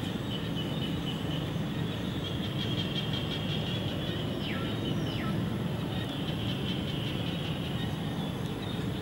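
Outdoor background noise: a steady low rumble with a continuous high buzz over it. About halfway through come two short whistle-like calls, each falling in pitch.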